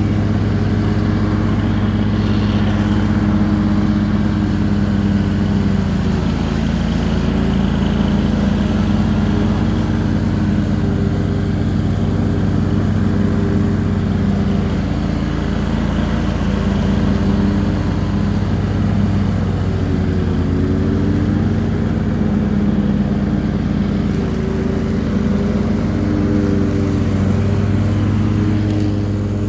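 Cub Cadet XT3 lawn tractor engine running steadily at mowing speed while the deck cuts very tall grass, its pitch sagging slightly now and then.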